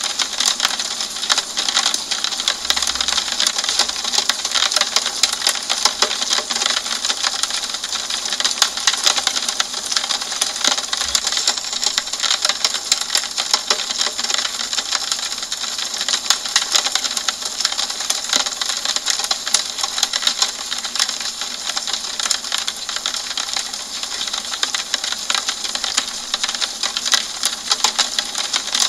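Steady rain on a window pane: a dense, fast ticking of drops over an even hiss, with little low end.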